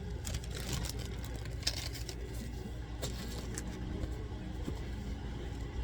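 Light rustling and a few soft clicks of items being handled, over a steady low background hum.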